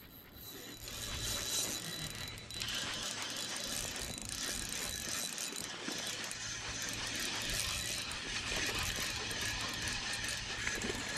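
Spinning reel cranked steadily to retrieve line, its gears turning continuously from about a second in.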